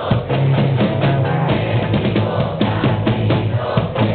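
Live rock band music: a drum kit beating a steady groove over bass and guitar, in an instrumental stretch between chorus lines.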